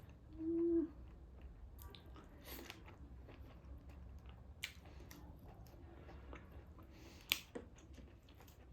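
Close-up chewing and mouth sounds of someone eating taro root with dried meat, with soft crackly clicks. A short hummed "mm" comes about half a second in, and a single sharp click about seven seconds in.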